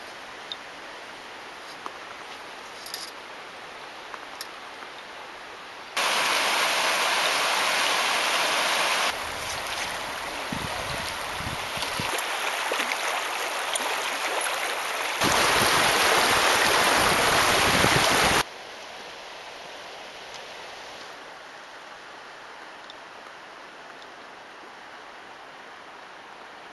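Shallow river water running and gurgling over cobbles, heard in several spliced clips. It is softer with a few faint ticks at first, turns abruptly much louder about six seconds in, and drops back to a softer run about eighteen seconds in.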